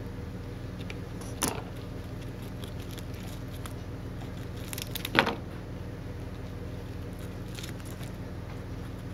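Hamster gnawing kernels off a corn cob: faint, scattered small crackly ticks over a steady low hum. Two louder sharp knocks stand out, about a second and a half in and about five seconds in, the second the louder.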